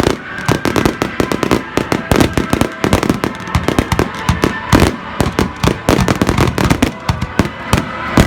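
Fireworks going off in quick succession: a dense, unbroken run of bangs and crackles.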